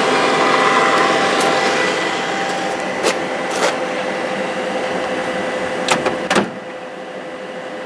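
HP large-format inkjet plotter initialising: its fan and mechanism run with a steady hum as the print-head carriage is driven. There are four sharp clicks in the second half, and the machine noise drops off about six and a half seconds in.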